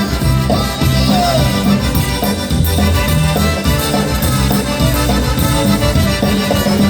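Polka band playing an instrumental passage, with a steady bass line and beat under held melody tones.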